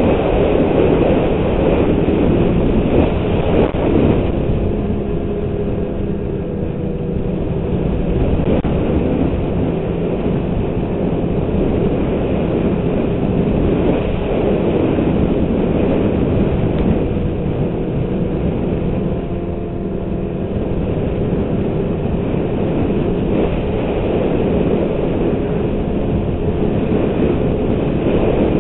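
Snowmobile engine and track running at speed along a groomed snow trail, a loud continuous drone that eases slightly a few seconds in and again about two-thirds of the way through.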